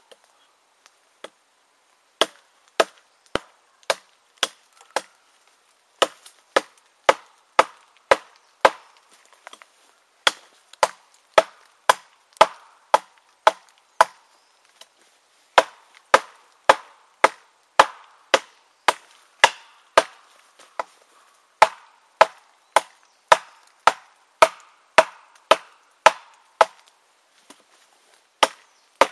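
TOPS Tom Brown Tracker knife chopping into a dead log: a steady series of sharp blade strikes on wood, about two a second, broken by a couple of short pauses.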